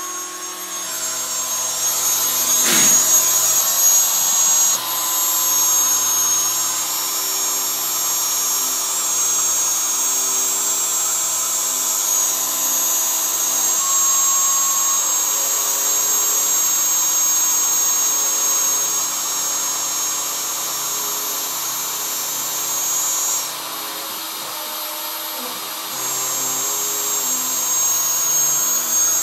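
Hobby CNC router running as its 2 mm three-flute cutter engraves letters into a board. The spindle gives a steady high whine, and the stepper motors hum in tones that change pitch as the machine moves from stroke to stroke. The high whine drops out for a couple of seconds near the end.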